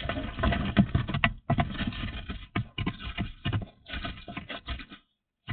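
Quick, irregular clicking and clattering, like small hard objects being handled, stopping near the end.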